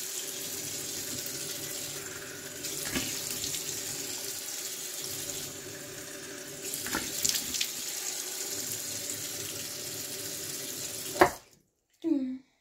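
Bathroom sink tap running steadily while water is splashed onto the face, with a few louder splashes. The running water stops abruptly with a knock near the end.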